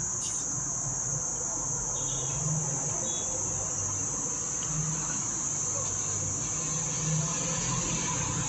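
Insects trilling steadily at a high pitch, with a low hum beneath.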